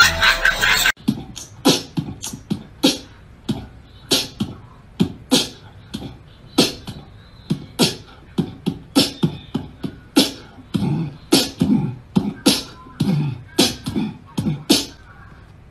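A brief loud noisy burst, then a long run of short, sharp percussive pops in an uneven rhythm, about two a second.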